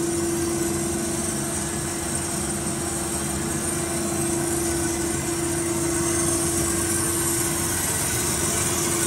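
Hyd-Mech 23A horizontal bandsaw powered up and idling: its hydraulic power unit runs with a steady hum and a constant mid-pitched whine.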